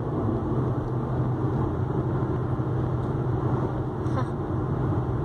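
Steady road and engine noise inside a moving car's cabin, an even rumble with a low hum that holds constant.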